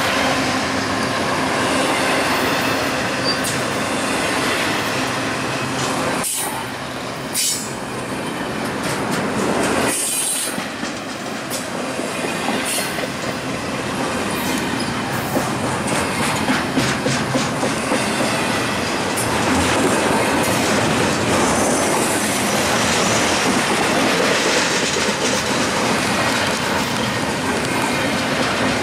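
Double-stack intermodal well cars of a freight train rolling past at close range: a steady rumble of steel wheels on rail with quick clicks as the wheels cross rail joints, briefly dipping about six and ten seconds in.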